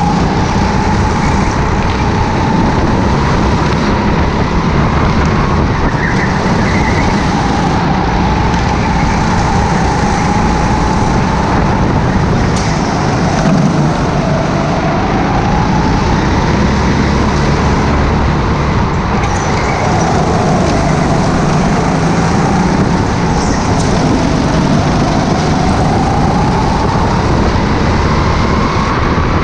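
Racing go-kart heard onboard at speed, its motor's pitch rising and falling again and again through the corners over a steady rush of road and wind noise.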